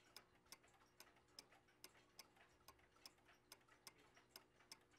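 Faint, steady ticking of a mechanical clock, about two to three ticks a second.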